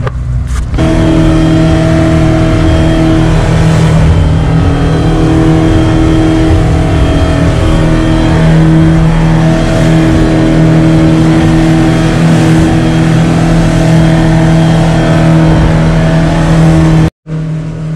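Yamaha 115 outboard running steadily at cruising speed, a loud even drone, with water and spray rushing along the hull. Near the end it breaks off abruptly for a moment and comes back quieter.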